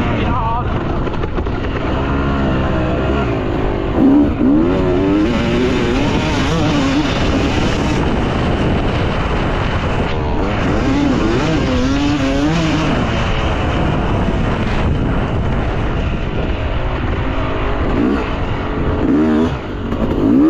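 Yamaha YZ250 two-stroke motocross bike engine being ridden, revving up and dropping back again and again as the throttle is worked, with a strong climb a few times.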